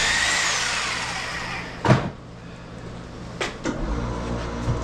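A door swinging, with a squealing hinge over a rush of noise, then banging shut about two seconds in. Near the end a low, steady machine hum starts up.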